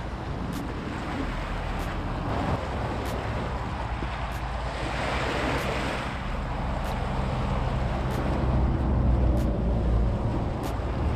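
Wind buffeting the microphone over small waves washing against a rocky shoreline. A wave swashes in about halfway through, and a stronger gust of wind comes near the end.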